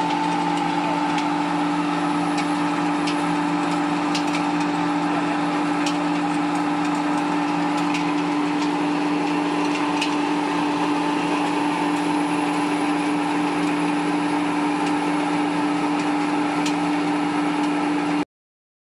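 Flat die feed pellet mill and its electric motor running steadily with the screw conveyor feeding it: a constant machine hum with a few faint scattered ticks. It cuts off suddenly near the end.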